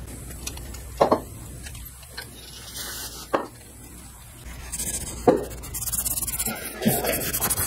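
Workshop handling sounds: three sharp knocks or clinks spaced a couple of seconds apart, then rubbing and scraping noise, as tools and parts are moved about.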